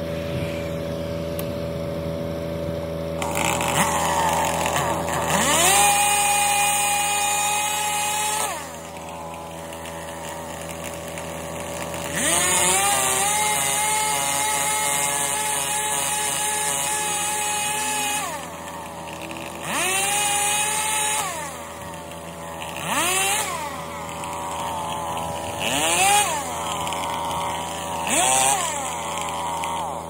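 Two-stroke chainsaw cutting tree limbs: it revs up with a rising whine into two long cuts of about five and six seconds, then gives several short bursts of throttle that rise and drop back. Under it runs a steady engine idle.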